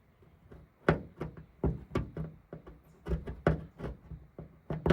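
A loose rivet in a riveted aluminum boat hull knocking and clicking as it is worked back and forth, in short irregular taps starting about a second in. The play in the rivet is the sign of a loose joint that lets water into the boat.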